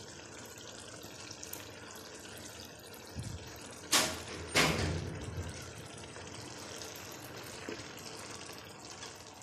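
Boiled rice tipped from a plastic colander into a kadai of egg and potato masala, with a steady hiss underneath. Two sharp knocks come about four seconds in, half a second apart.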